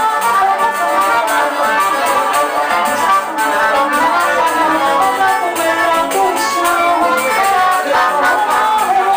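Live forró band playing: a reedy accordion melody over guitar, zabumba drum and hand percussion, with a steady, even dance beat.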